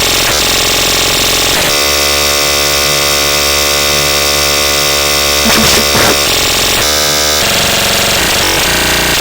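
Loud, harsh electronic noise: dense stacks of steady tones over a hiss that fills the whole range, switching abruptly to a new texture several times.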